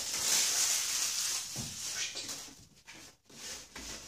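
Cardboard packaging rustling and scraping as a small box is handled and worked open, with a soft knock about one and a half seconds in. The rustling dies down after about two and a half seconds.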